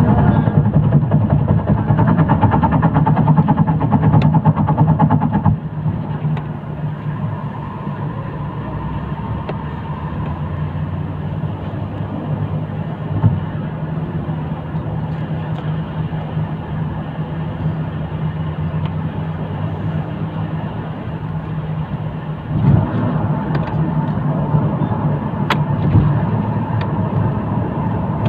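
Steady engine hum and road noise inside a moving vehicle at highway speed, louder for the first few seconds, then quieter, and swelling again near the end.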